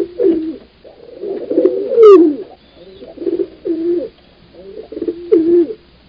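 Domestic pigeon cooing: a run of low coos in short phrases that dip and rise in pitch, loudest about two seconds in.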